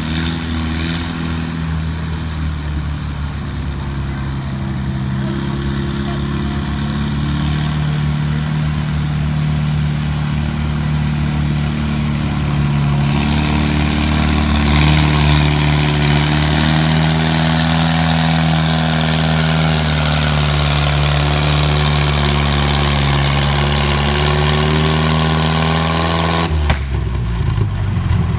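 A 5500 lb Limited class pulling tractor's engine running hard under load as it drags a weight-transfer sled down the track. The engine holds a steady pitch and gets louder about halfway through. It drops away abruptly near the end as the pull finishes.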